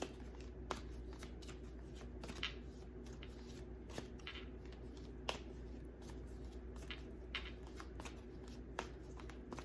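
Tarot deck being shuffled by hand: soft, irregular rustling and light taps of the cards.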